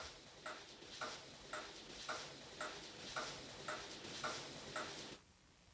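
A clock ticking steadily, about two ticks a second, stopping abruptly about five seconds in.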